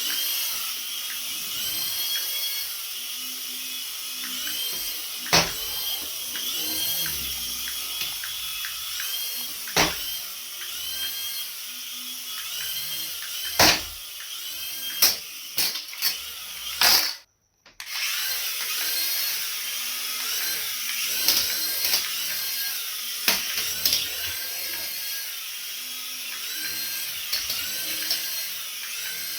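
Small electric toy motor whining steadily with a repeating warble, with sharp knocks now and then; the sound cuts out completely for a moment about two-thirds of the way through.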